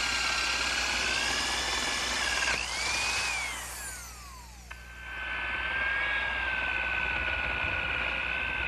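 Electric drill with a spade bit boring holes through a wooden panel: a steady motor whine that winds down in a falling glide about three seconds in, then starts up again about two seconds later and runs steadily for the second hole.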